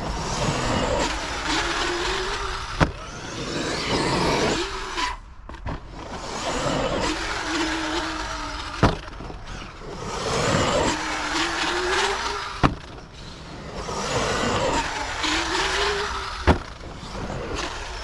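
Arrma Kraton 8S EXB electric RC monster truck driving hard on dirt: its brushless motor whines up and down in pitch in repeated bursts over the noise of the tyres. Four sharp knocks, a few seconds apart, are impacts of the truck.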